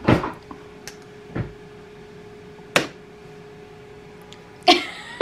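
A few sharp knocks and clunks, one after another at intervals of about a second and a half, over a faint steady hum that stops near the end.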